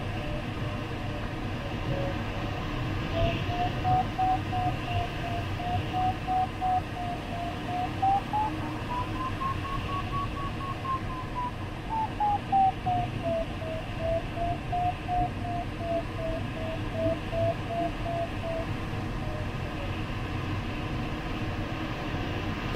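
Glider variometer beeping in short pulses whose pitch rises to a peak in the middle and falls back again, signalling a climb in a thermal that strengthens and then weakens. Under it runs steady airflow noise in the sailplane cockpit.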